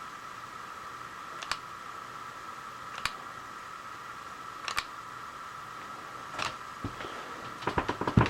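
Drill press running with a steady whine, broken by single sharp clicks roughly every second and a half, then a quick flurry of clicks and knocks near the end.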